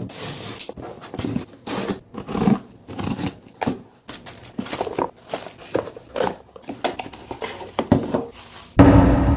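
Irregular scraping and clicking, about two or three strokes a second: hand tools working at a stuck, stripped oil filter cap. Guitar music comes in near the end.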